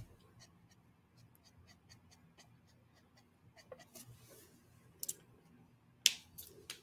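Copic marker working on drawing paper: faint scratchy strokes and light ticks of the tip, with sharper clicks about five seconds in and, loudest, about six seconds in.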